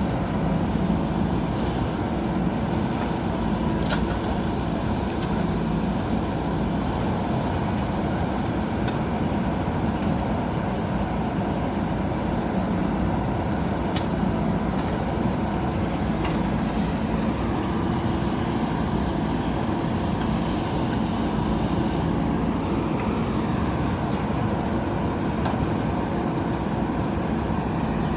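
JCB 3DX backhoe loader's diesel engine running steadily under work, with a few faint clicks or clanks from the machine.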